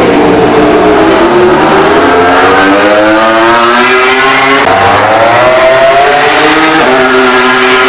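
Ducati Desmosedici GP21 MotoGP V4 engine running at race speed: its pitch falls, then climbs as the bike accelerates, with abrupt jumps in pitch twice in the second half.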